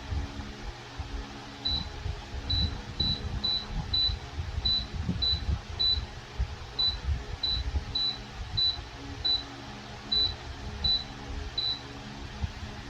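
Comfort Zone 16-inch wall-mount fan running with a steady hum, under an irregular low rumble. About sixteen short high electronic beeps come at uneven intervals of half a second to a second, the fan acknowledging button presses from its remote.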